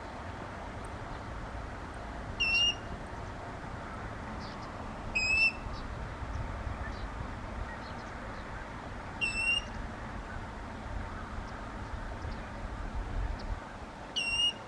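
Water rail calling from cover: four short, high single notes spaced a few seconds apart, over a steady outdoor hiss.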